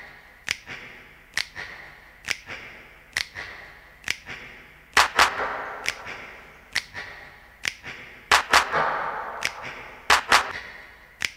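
Footsteps of hard-soled boots on a stone floor, each step a sharp click with an echo from a large hall, at a slow, even pace of about one step a second; a few quicker double steps come about halfway and near the end.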